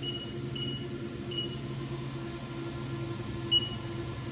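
Haas CNC lathe control keypad beeping as keys are pressed: four short, high beeps, three in the first second and a half and one more near the end, over a steady low hum.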